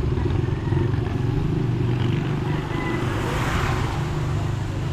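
Roadside motor traffic: a small engine runs steadily and a vehicle swells past about three and a half seconds in.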